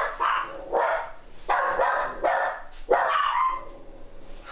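Several household dogs barking, about five loud barks in quick succession, dying down about three and a half seconds in: alert barking at someone arriving at the house.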